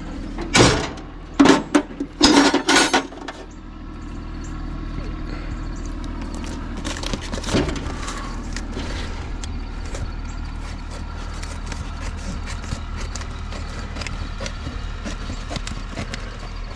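Several short, loud rasping bursts, then a steady mechanical hum that runs on with scattered light clicks and taps over it.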